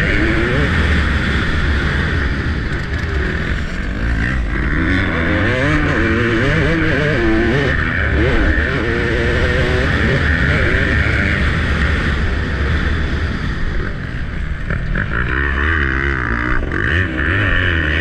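Motocross dirt bike engine ridden hard around a dirt track, its pitch rising and falling again and again as the rider revs up and backs off through the gears and turns.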